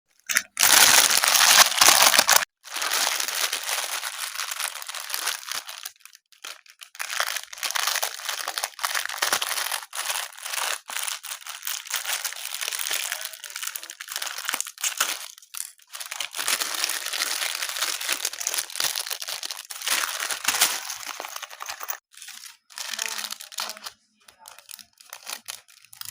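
Packaging being crinkled and torn open by hand, with a loud burst of rustling in the first couple of seconds and then irregular rustles broken by short pauses.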